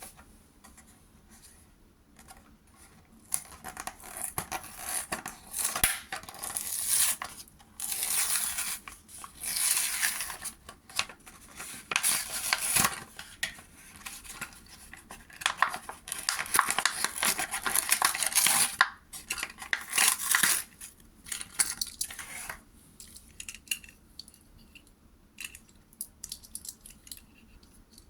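Toy packaging being handled and opened: irregular bursts of rustling and tearing with small clicks, busiest for most of the middle, then thinning to scattered light clicks and taps near the end.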